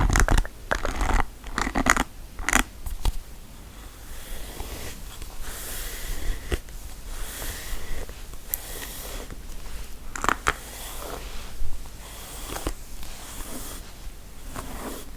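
Close-miked ASMR trigger sounds of an object being handled: several sharp clicks and taps over the first few seconds, then a soft, hissy scratching, with a few more clicks about ten seconds in.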